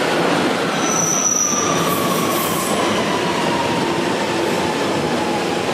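London Underground 1992 Stock Central line train running into the platform, its whine falling steadily in pitch as it slows, with the rumble of wheels on rail and a short high wheel squeal about a second in.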